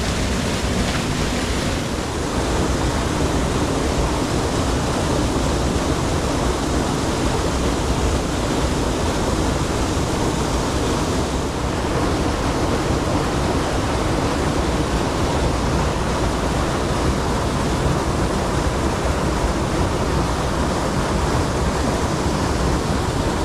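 Fast-flowing woodland stream rushing close by below a small waterfall, a steady loud rush of water.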